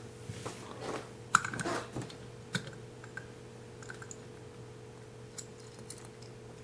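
Scattered light clicks and taps of a screwdriver and small parts of an LED light fixture being handled as its screws are taken out.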